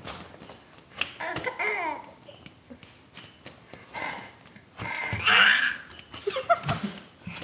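A baby laughing and babbling in short bursts, loudest about five seconds in, with a few light clicks between the bursts.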